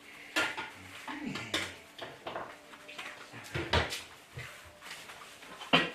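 A few sharp clattering knocks, about four in six seconds, the last one the loudest, with faint voice-like sounds in between.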